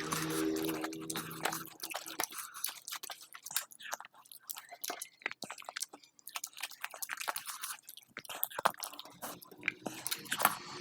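Close-miked chewing and wet mouth sounds of a person eating a meal of congee with mashed sides and fried snacks, made up of many irregular sharp clicks.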